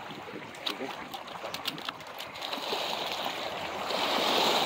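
Sea surf washing over shoreline rocks on an incoming tide, swelling into a steady rush from about two seconds in. A few light clicks and taps come before it.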